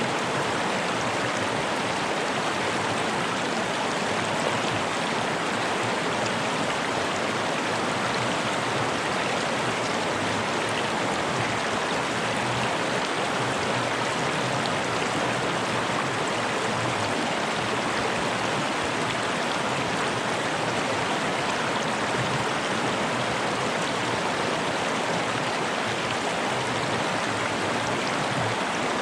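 Fast-flowing mountain river rushing over rocks: a steady, even roar of water.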